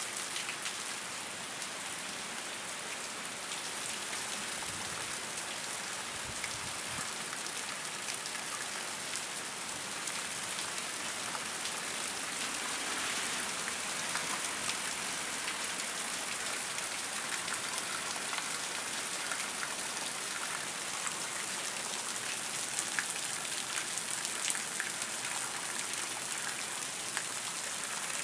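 Heavy rain pouring down steadily, a dense even hiss, with scattered sharper splashes of nearby drops in the second half.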